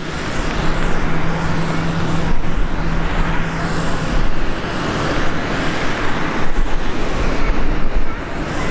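Airbus A319-112's CFM56 jet engines running at low thrust as the airliner taxis and lines up on the runway: a steady jet roar with a low rumble, and a steady low tone in it for the first few seconds.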